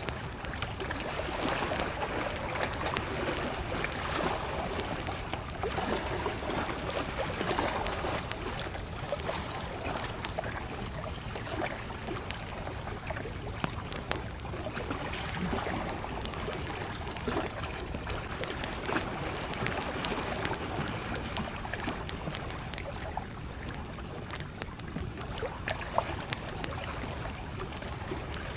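Small lake waves lapping against the shore, over a wood campfire crackling with scattered sharp pops. One pop is louder, near the end.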